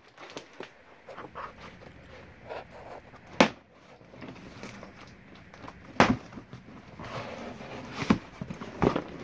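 Old books and a cardboard box being handled: paper and cardboard rustling, with a few sharp knocks as items are lifted and set down, the loudest about three and a half seconds and six seconds in.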